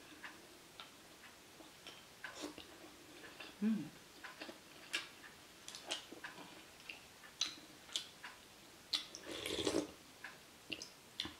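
Eating sounds: scattered light clicks and taps of chopsticks and a spoon against ceramic bowls, with chewing and mouth noises, and a longer, louder stretch of eating noise about nine to ten seconds in as a spoonful of meatball soup is taken.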